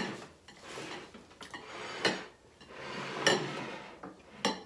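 Bowls and spoons clinking and knocking on a table as the bowls are moved around, with three sharp knocks a little over a second apart in the second half.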